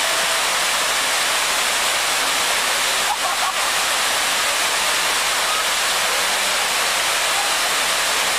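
Fountain jets shooting up and splashing back into the pool: a steady, even rush of falling water.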